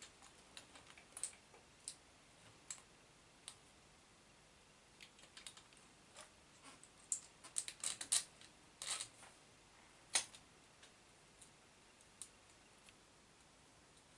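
Scattered light clicks and taps of small metal parts and tools being handled while fitting parts to an RC monster truck's suspension, with a quick run of clicks about seven to eight seconds in and a single sharper one a couple of seconds later.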